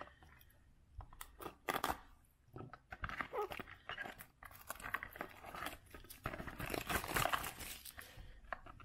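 Plastic shrink wrap being torn and peeled off a small cardboard trading-card box by hand: irregular crinkling and tearing, with a couple of sharper crackles about a second and a half in.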